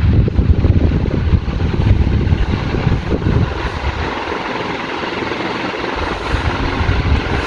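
Ventisol Fênix ceiling fan running in forward, its strong downdraft buffeting the microphone as low, gusty wind noise.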